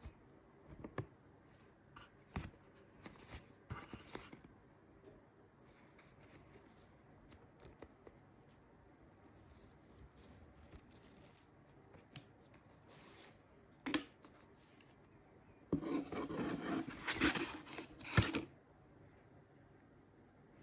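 Packaging being opened and handled by hand: scattered clicks, scrapes and rustles, with a longer stretch of dense rustling and scraping near the end.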